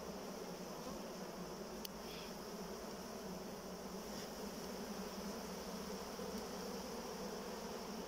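A honeybee colony buzzing steadily in an open hive: the massed hum of many bees on the frames.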